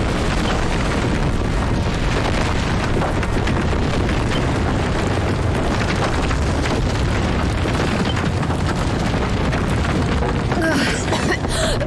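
Cave-in: rocks and rubble crashing down in a heavy, continuous rumble. A woman's voice cuts in near the end.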